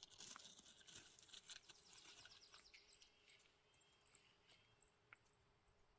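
Near silence: faint crackling and clicks of handling or rustling in the first couple of seconds, then only faint, short high chirps repeating every second or so.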